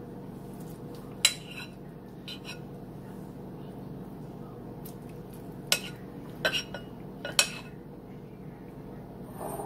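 Metal spoon clinking against bowls as pasta salad is dished up: a sharp clink about a second in, then several more between about six and seven and a half seconds in, over a steady low hum.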